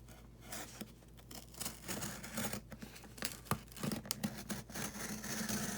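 Packing tape being slit and torn open on a cardboard shipping box, with irregular scraping and crinkling of the packaging.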